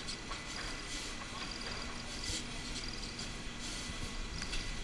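Surface-mount pick-and-place machine running: short hissing puffs of air about once a second over a steady machine hum, with a faint steady high tone throughout.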